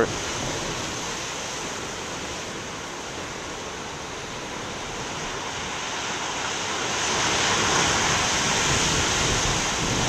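Big wind-whipped ocean waves breaking on a rocky shore: a steady wash of surf that swells louder about seven seconds in as a large wave crashes onto the rocks.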